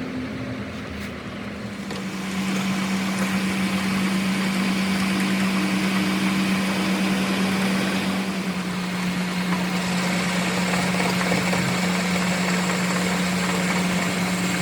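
A motor runs steadily with a constant hum and a hiss. It sets in and gets louder about two seconds in, and its pitch drops slightly a little past the middle.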